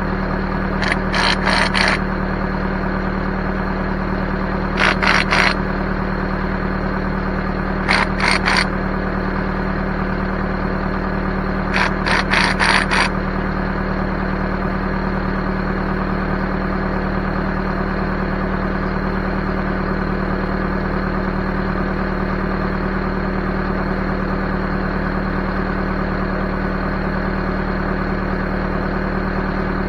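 Backhoe engine idling steadily, with four short bursts of rapid mechanical clicking over it in the first half.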